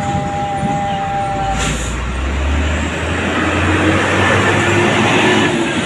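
A bus's air horn holding a steady two-note chord that cuts off about a second and a half in, followed by the bus passing close by, its engine rumble and tyre noise swelling and then easing.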